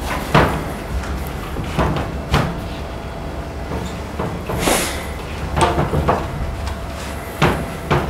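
Irregular knocks and bumps in a classroom, about seven spread unevenly, with a brief hiss near the middle, over a steady low hum.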